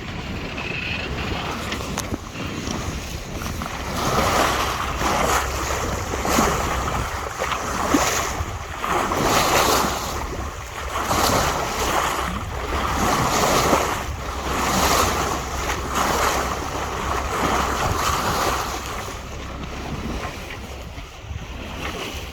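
Water rushing and splashing past the hull of a sailing yacht under sail in a choppy sea, with wind buffeting the microphone. The noise swells and eases every second or two.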